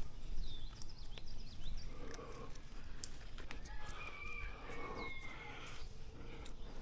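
Birds chirping in the background: a string of short falling chirps, then a longer held call about four seconds in. Scattered sharp clicks and scrapes come from bare hands and feet working on tree bark, over a low rumble on the head-mounted microphone.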